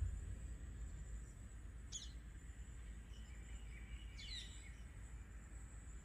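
Outdoor ambience: a bird calls briefly twice, a single sharp call about two seconds in and a short run of chirps a couple of seconds later. Underneath are a steady low rumble and a thin, steady high whine.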